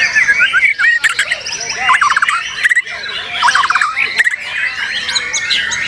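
White-rumped shamas (murai batu) singing: a dense, varied song of quick whistled and gliding notes from several birds at once, with two fast rattling trills about two and three and a half seconds in.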